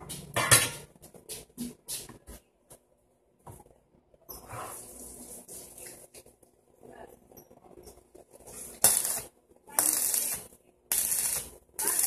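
Light metal clinks and a sharp knock about half a second in as the steel frame and plywood sheet are handled. Then, from about nine seconds in, three short bursts of arc-welding crackle, each about a second long, as short welds are laid on the steel-tube frame.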